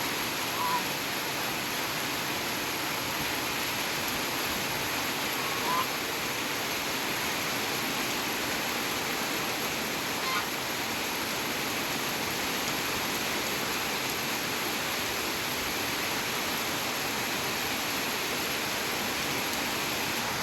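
Steady rain falling, an even hiss at an unchanging level. Three short, faint high-pitched sounds stand out briefly, about a second in, near six seconds and near ten seconds.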